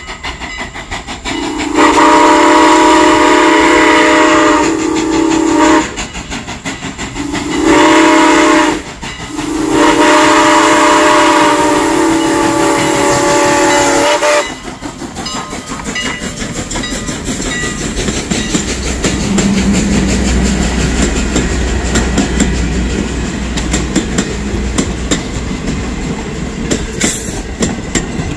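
Steam locomotive whistle sounding the grade-crossing signal from a 2-6-0 steam locomotive, No. 89: a long blast, a short one and a final long blast, the end of the long-long-short-long warning. About halfway through, the engine and its passenger cars roll past, rumbling, with a clickety-clack of wheels over the rail joints.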